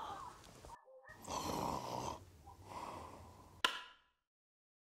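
A man snoring: two rasping breaths, the first about a second long and the second shorter and fainter. A single sharp click follows near the end, with the lights coming on.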